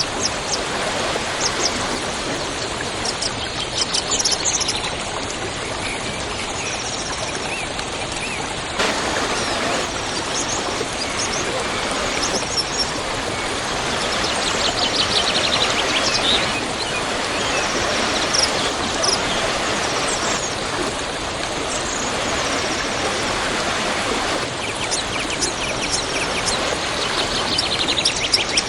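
Waterfall: a steady rush of falling water. Over it, birds chirp in short trilled bursts, three or four times.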